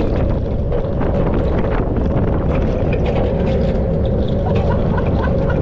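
Small family roller coaster train running along its steel track, heard from the front car: a steady low rumble of the wheels with a constant whine over it and frequent rattling clicks.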